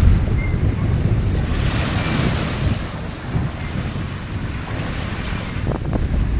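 Small lake waves washing up on a sandy beach, swelling and fading, with wind buffeting the microphone in a low rumble that is heaviest at the start. A few faint clicks come near the end.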